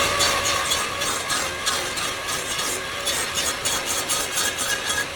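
A saw cutting through wood in quick, repeated rasping strokes, several a second.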